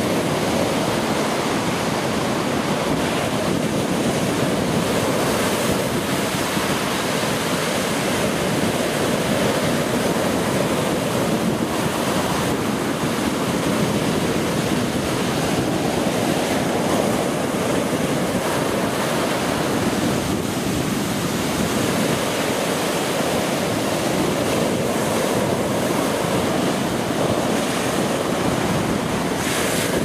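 Heavy sea surf breaking and washing up a sandy beach in a continuous rush of water, with wind buffeting the microphone.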